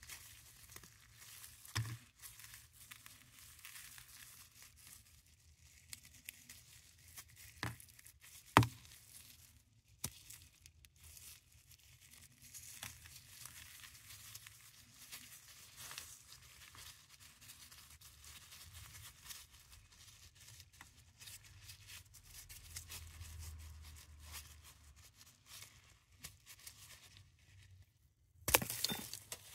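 Paradichlorobenzene mothball tablets and powder being crushed and worked in gloved hands: soft, gritty crunching and crinkling with scattered small cracks. One sharp crack comes about eight and a half seconds in, and a louder burst of crunching near the end as a stack of tablets is squeezed.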